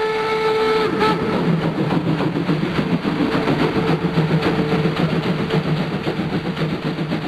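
Märklin model train running along its track: a steady motor hum with rapid, continuous clicking of the wheels on the rails. A held tone fades out about a second in.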